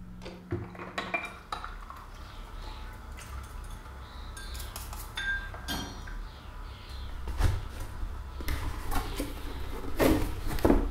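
Household cleaning clatter: dishes and cutlery clinking and knocking, a string of short clinks and knocks that grows busier and louder near the end.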